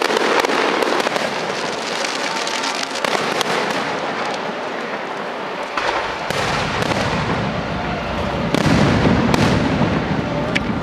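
Aerial fireworks shells bursting overhead: a dense, continuous crackle with several sharp bangs, and heavier deep booms from about six seconds in.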